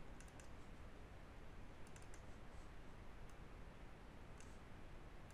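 Faint computer mouse clicks over low steady room hiss: a few quick clicks at the start, a pair about two seconds in, then single clicks later.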